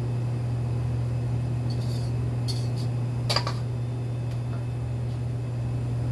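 Steady low mechanical hum of a kitchen appliance or fan, with a few light clinks and taps of kitchen utensils around the middle, the sharpest about three seconds in, as a custard mixture is strained.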